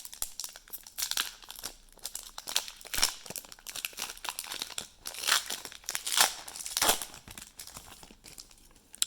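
Plastic trading-card pack wrapper being torn open and crinkled by hand, an irregular run of rustles and crackles that grows louder about five seconds in.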